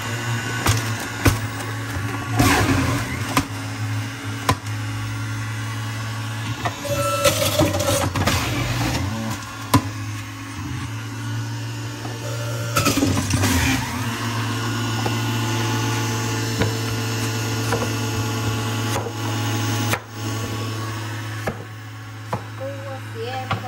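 Electric centrifugal juicer running with a steady motor hum while shredding apples, getting louder and grinding harder three times, about 2, 7 and 13 seconds in, as apples are pushed through.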